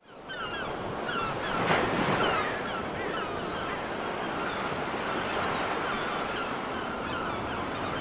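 Steady rush of flowing water with many birds chirping over it, fading in at the start and swelling briefly about two seconds in.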